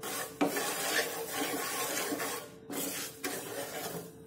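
Wooden spatula stirring and scraping through bubbling sugar syrup in a nonstick frying pan, in repeated strokes with brief breaks. The syrup is being cooked toward one-string consistency.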